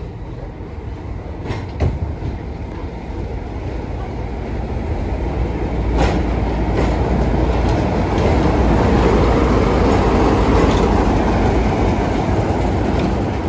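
Class 33 diesel locomotive with a Sulzer eight-cylinder engine, drawing slowly past on arrival with its engine running. The sound builds as it nears and passes, and there are a few sharp clicks.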